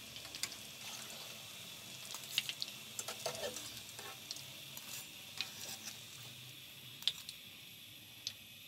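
Hot oil sizzling faintly around breaded potato-and-keema cutlets in a shallow frying pan, with scattered small crackles, as the cutlets are lifted out with a wire skimmer.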